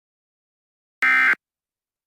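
Emergency Alert System end-of-message data burst: a short buzzy digital screech about a second in, after a second of silence. It is the first of the repeated SAME code bursts that close an EAS alert.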